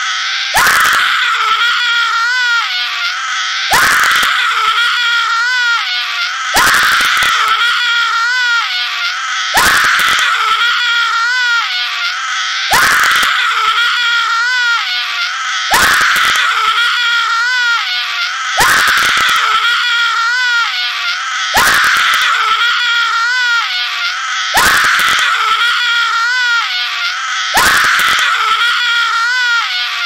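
A man's high-pitched scream, each cry held and wavering for about three seconds after a quick rise at its start, repeated over and over at an even pace.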